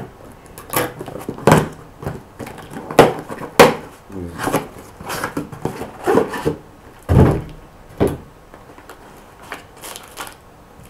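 Cardboard packaging being handled and unwrapped by hand: irregular rustling and crinkling, with several sharp knocks and thumps as the box and its contents are moved about.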